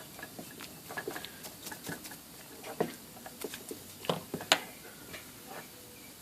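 Scattered light clicks and taps of small metal parts from an IBM Selectric motor being handled and cleaned on a workbench, with the sharpest knock about four and a half seconds in.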